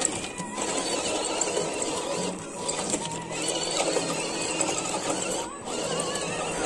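Electric motor and gearbox of an RC rock crawler whining as it creeps over rocks and dirt, the pitch rising and falling with the throttle.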